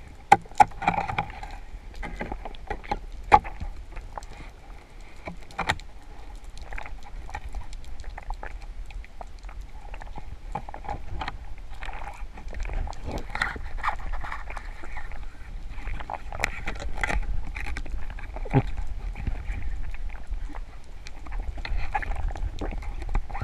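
Underwater ambience heard through a camera housing: a constant low rumble and a faint steady hum, scattered with many small sharp clicks and crackles, and a few louder knocks in the first few seconds.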